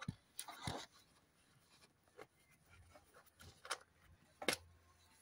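A wing screw on a velomobile's seat mount being unscrewed by hand: a few faint, scattered clicks and light scrapes, the clearest about three and a half and four and a half seconds in.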